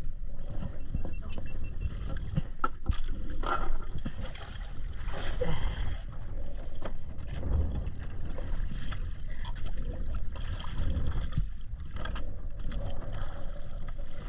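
Sea water sloshing and bubbling around an action camera, with scattered clicks and a steady low rumble.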